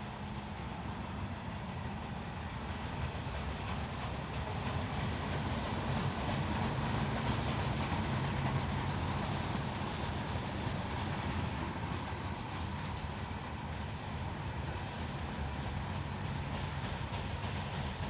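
Norfolk Southern freight train rolling past with a steady rumble and faint clatter. It grows louder toward the middle, then eases a little.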